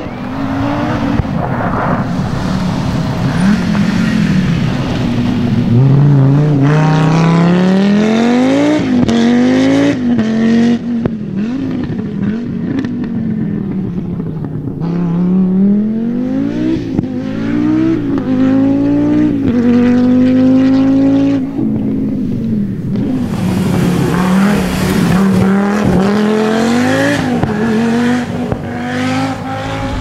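Turbocharged inline five-cylinder engines of Audi Quattro rally cars at full throttle, the pitch climbing and dropping again and again as they accelerate through the gears and lift off. Several separate passes follow one another with sudden changes in sound between them.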